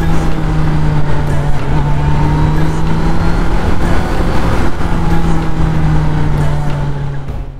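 Kawasaki Z900's inline-four engine running at a steady cruising speed, a constant even hum, under heavy wind rush on the microphone.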